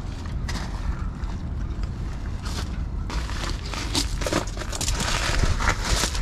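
Wind rumbling on the microphone, with scuffing and scraping handling noises that grow busier and louder in the second half.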